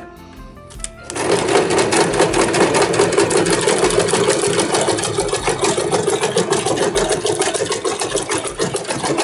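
Electric sewing machine sewing a double zigzag stitch through a laminated plastic pouch. After a short pause it starts up about a second in and runs steadily at speed, a fast even needle rattle.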